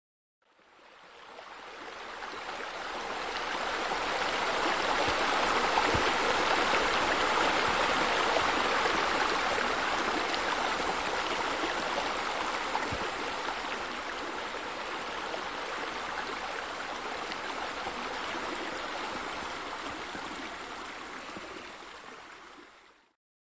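Steady rush of running water, as from a stream or waterfall. It fades in over the first few seconds and fades out near the end.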